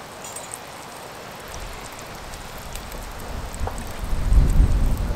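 Sausages frying in a small camping-stove pan, a steady sizzle. A loud low rumble comes in about four seconds in.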